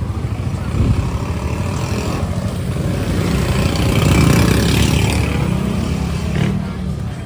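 Street traffic: a motor vehicle's engine running as it passes, with a low rumble throughout and a hiss that swells to its loudest a little past the middle, then fades.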